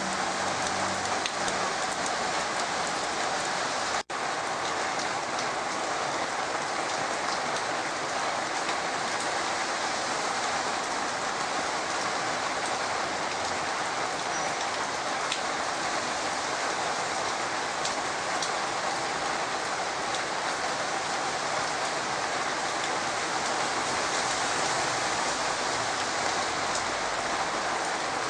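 Heavy rain falling steadily on wet soil and mulch, an even hiss that drops out for an instant about four seconds in.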